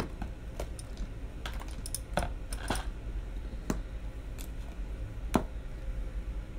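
Handling noise of makeup items close to the microphone: scattered light clicks and taps, about nine over several seconds, the sharpest about five seconds in, over a low steady hum.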